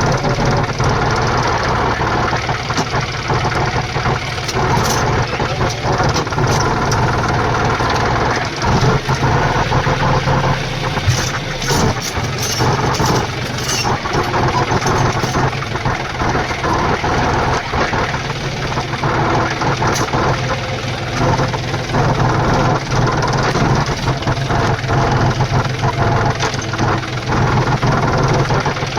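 Tractor's diesel engine running steadily, with scattered sharp clicks and knocks, most of them in the middle.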